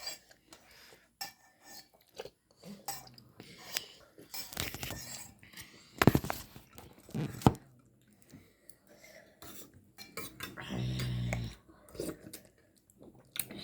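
Metal spoons clinking and scraping against soup cups while eating, in scattered sharp clinks, the loudest about six and seven and a half seconds in. A brief low hum sounds about eleven seconds in.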